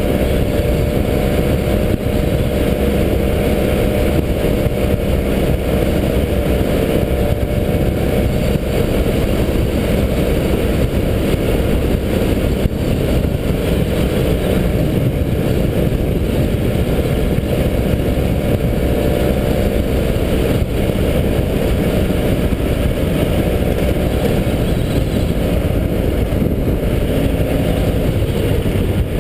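BMW F800GS parallel-twin engine running steadily under way, heard through a helmet-mounted camera with wind rushing over it.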